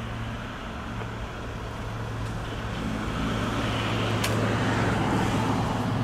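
A vehicle engine running steadily with a low, even hum, while a broad rush of noise swells over the second half, as of a vehicle passing close by.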